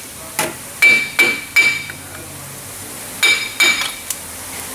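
Ringing metal hammer blows on a rusted-in front wheel hub bearing assembly, knocking it loose: three sharp strikes about a second in and two more a little past three seconds, with fainter knocks before and after.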